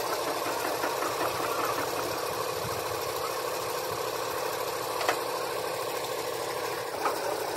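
A motor running steadily in the background, with two short knocks, one about five seconds in and one near the end.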